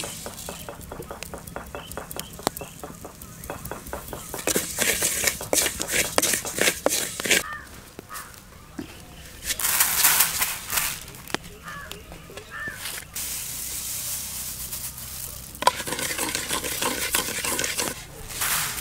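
Rice grains dry-roasting in a clay pot over a wood fire, stirred with a wooden spatula: grains scraping and rustling against the clay, with crackling from the hot grains. Three louder stretches of stirring come about a third of the way in, near the middle and near the end.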